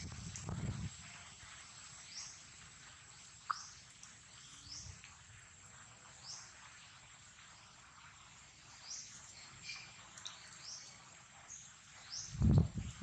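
Outdoor ambience of repeated short, rising high chirps every half second to a second, over a steady thin high whine. A brief rustle comes at the start and a louder one near the end.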